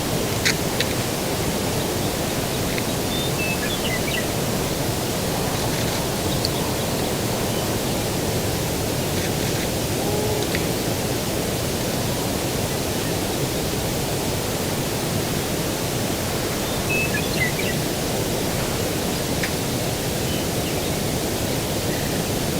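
Steady low rushing outdoor ambience, with a bird giving a short run of high chirps twice, a few seconds in and again later on.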